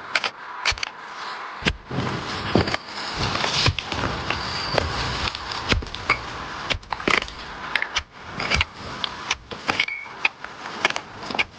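Digging out a bamboo shoot by hand tool: irregular knocks, crunches and scraping in earth and stones, with rustling between the strokes.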